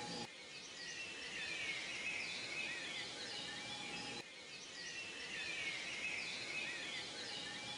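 Many small birds chirping over a steady background hiss. It is a looped ambience track that breaks off and starts over abruptly about every four seconds.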